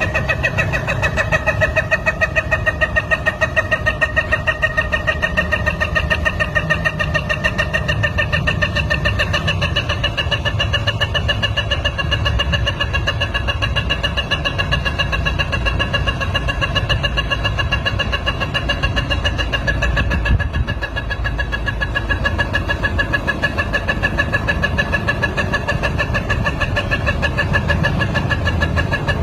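Rooster crowing one very long, unbroken crow: a held, steady note with a fast tremble in it, wavering slightly in pitch and dipping briefly about two-thirds of the way through.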